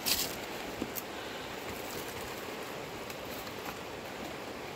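Steady rush of a river flowing over rocks. At the very start there is a short crackly rustle from the nylon fishing net and plastic sack being handled, and a faint click comes about a second in.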